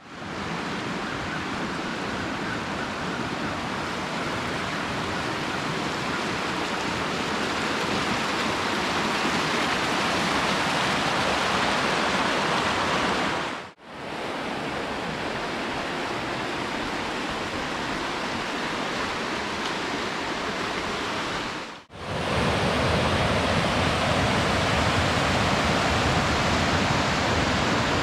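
Steady rushing of water from a creek and waterfall running high after heavy rain. It breaks off briefly twice, about 14 and 22 seconds in, where the footage is cut.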